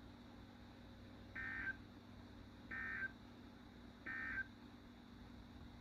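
Emergency Alert System end-of-message data bursts: three short two-tone digital chirps, evenly spaced, signalling the end of the alert.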